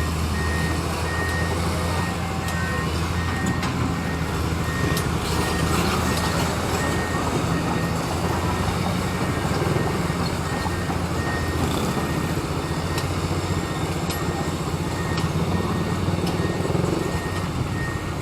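Excavator's diesel engine running steadily while its travel/reversing alarm beeps continuously, about two beeps a second, as the machine is moved out.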